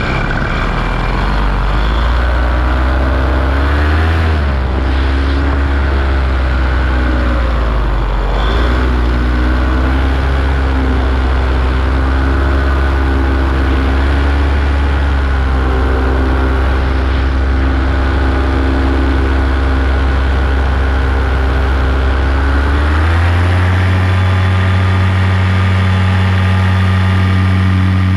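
Paramotor engine running steadily, its revs rising and falling a few seconds in, then stepping up to a higher steady speed about two-thirds of the way through as the throttle is opened.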